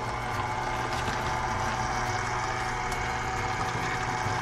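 Electric stand mixer running steadily, its flat beater turning through flour dough.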